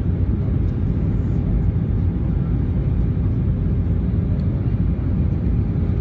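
Steady cabin noise inside an Airbus A319 airliner in flight: a dense low rumble of the jet engines and rushing air, with a faint steady hum.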